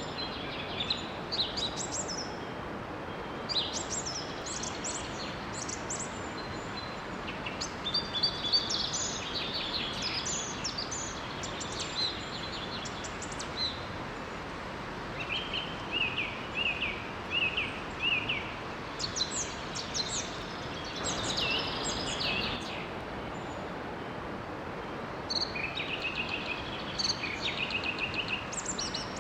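Several songbirds singing in bouts of quick, high chirping phrases over the steady rush of a small waterfall or stream; the birdsong pauses briefly about three-quarters of the way through.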